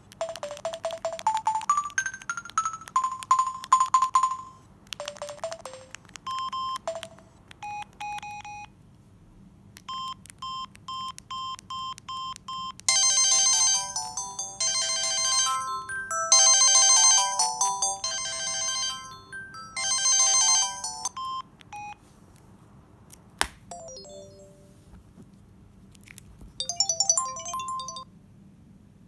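Samsung SGH-X510V flip phone playing electronic beeps and short polyphonic tunes through its small speaker: a stepping run of rising notes at the start, scattered single beeps, a quick row of evenly spaced beeps, then a louder tune in four phrases, and a brief jingle near the end.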